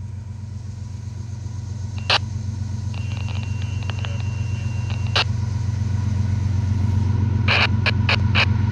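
Diesel locomotives of an approaching Norfolk Southern freight train rumbling steadily, growing slowly louder as they draw near. A few short sharp sounds cut in about two and five seconds in, and several come in quick succession near the end.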